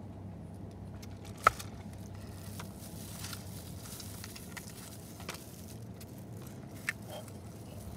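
Disposable plastic glove and cardboard food box crackling and clicking as they are handled, with a sharp click about a second and a half in and another near the end, over a steady low hum.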